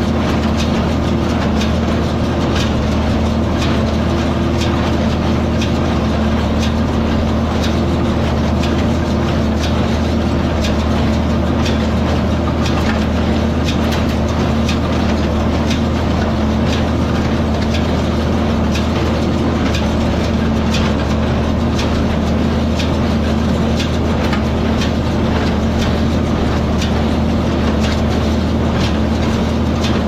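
Tractor engine running steadily at working speed while a small square hay baler runs behind it, its plunger clacking in a regular rhythm about once a second.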